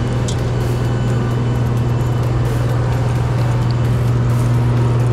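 Steady low mechanical hum of aircraft machinery running on the airport apron, with an even rushing noise over it.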